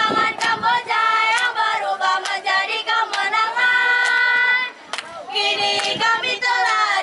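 Young voices singing together, a group of students singing a scout song, with sharp taps keeping time about once a second and a brief break in the singing about five seconds in.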